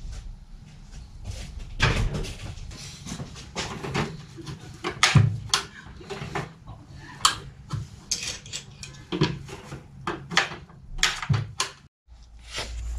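Irregular knocks, clicks and clatter of tools and parts being handled on a workbench, with no steady running machine.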